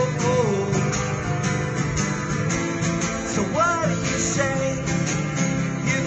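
A man singing and strumming an acoustic guitar, with sung phrases over steady chords.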